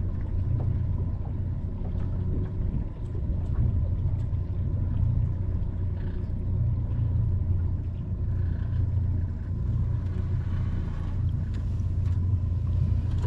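A steady low rumble that swells and eases in strength, with a faint thin steady tone above it.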